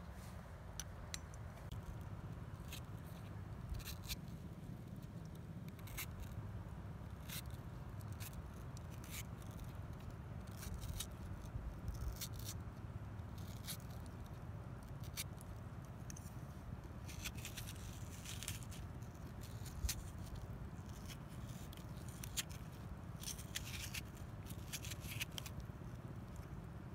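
Small knife cutting and scraping the flesh out of green tomatoes, a scatter of short crisp cuts and scrapes, busier about two-thirds of the way in and near the end, over a steady low rumble.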